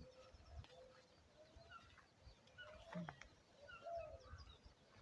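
Faint, scattered short bird calls over near silence, with a single soft click about three seconds in.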